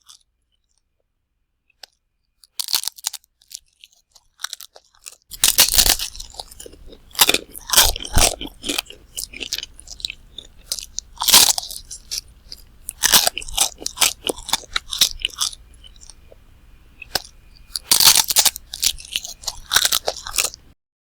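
A person chewing crunchy food close to the microphone: irregular crisp crunches and bites in clusters. It is nearly silent for the first couple of seconds, and the loudest crunches come in bunches several seconds apart.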